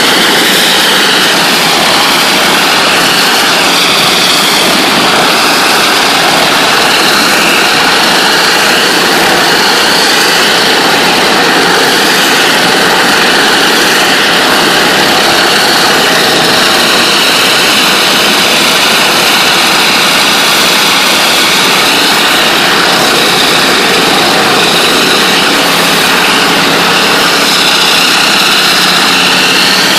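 NLB Spin Jet ultra-high-pressure water-jetting tool blasting a floor at 40,000 psi through its spinning nozzle head: a loud, steady rushing hiss of water jets that never lets up.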